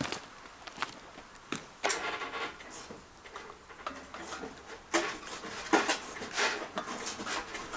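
Hand tools working on metal: irregular clicks and knocks with a few short scraping bursts, as bolts are fitted on the engine.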